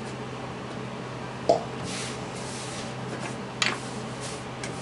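A hand sweeping and rubbing through flour on a countertop. A sharp knock comes about a second and a half in, the loudest sound. A lighter, brighter knock follows about two seconds later, with soft swishing in between, over a steady low hum.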